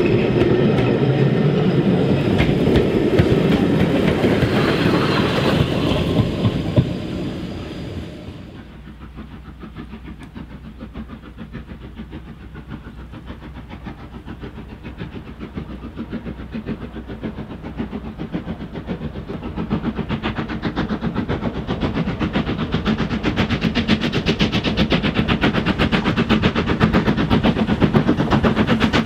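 Railway carriages rolling past close by, wheels clicking over the rail joints, the sound fading away about eight seconds in. Then a steam tank locomotive working a train, its rapid exhaust beats growing steadily louder as it approaches.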